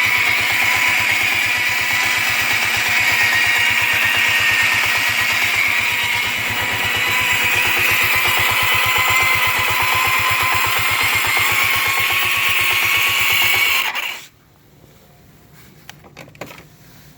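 Yamaha Riva 125 XC scooter engine running with a steady high-pitched whine over the fast firing pulse; this is the unidentified noise the owner is trying to trace. The engine cuts off suddenly about fourteen seconds in, followed by a few faint clicks.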